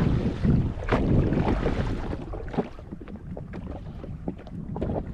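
Wind rumbling on the microphone out on open sea aboard a jet ski, with irregular light knocks and taps.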